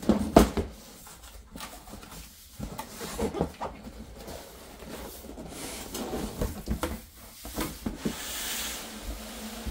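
A large cardboard box being handled and opened. There is a loud thump just after the start as it meets the table, then knocks and scraping as it is turned and its flaps opened. A longer sliding rub of cardboard comes near the end.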